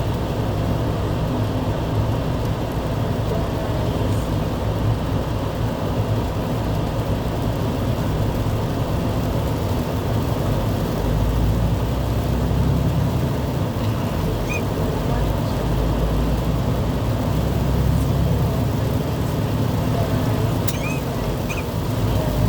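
Steady vehicle road noise: a continuous low rumble with a hiss over it, swelling a little twice.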